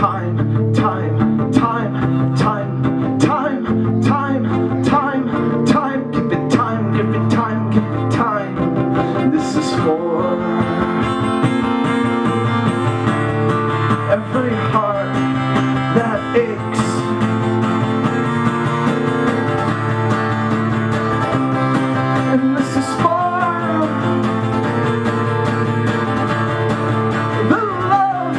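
A man singing over his own strummed acoustic guitar in a live solo performance, with steady chord strokes throughout.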